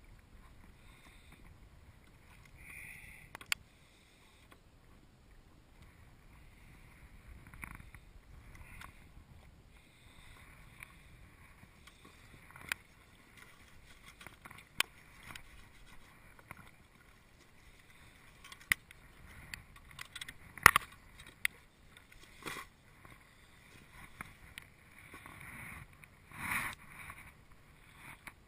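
Scattered sharp knocks and clicks of a fish and a measuring ruler being handled against a kayak's hull, the sharpest about two-thirds of the way through, over a faint wash of water.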